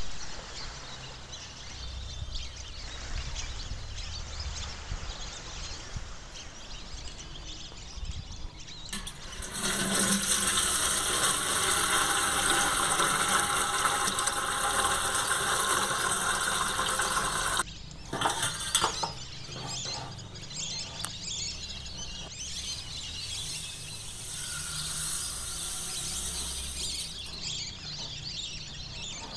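Tap water running hard into a bowl in a steel sink, a steady rush that starts about nine seconds in and cuts off suddenly some eight seconds later, followed by a few knocks of kitchenware.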